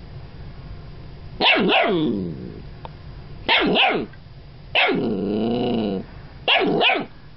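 Golden retriever puppy barking at a hairbrush on the floor: four barks a second or two apart, the third drawn out for over a second with a wavering pitch.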